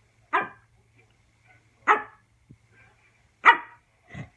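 A Pomeranian–Pekingese mix dog barking: three sharp, evenly spaced barks and a softer fourth near the end. The barks come as the dog seems to be asking its owner to fetch or throw a toy for play.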